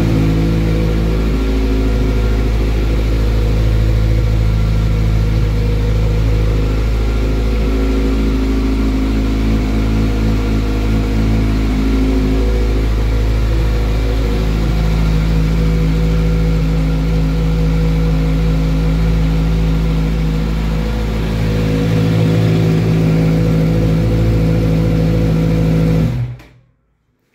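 Kawasaki Z1000's inline-four engine idling steadily through a Hurricane Evolution aftermarket exhaust, very loud, warming up after the first start of the day with no revving. The sound cuts off suddenly near the end.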